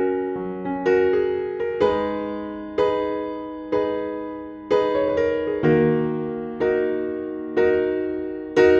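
Background music: slow, gentle piano or electric-piano chords struck about once a second, each ringing out and fading before the next.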